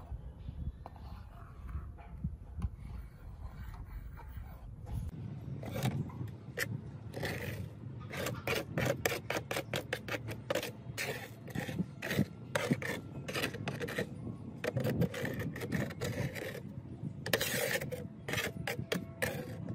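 Repeated abrasive scraping strokes on a hard surface, several a second and irregular, like filing or sanding. They start about a quarter of the way in and come faster and denser from about the middle on.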